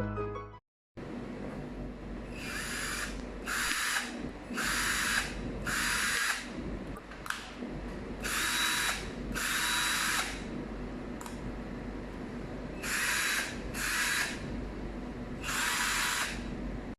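Cordless battery drill running in short bursts, its motor spun up and released about nine times, each run lasting under a second.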